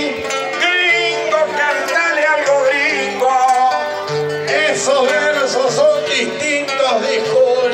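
Acoustic guitar music with a man singing in long, wavering notes over it: folk accompaniment of the kind played for improvised sung verses.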